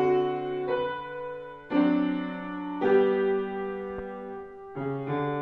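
Slow piano music: sustained chords, each struck and left to ring, changing every one to two seconds.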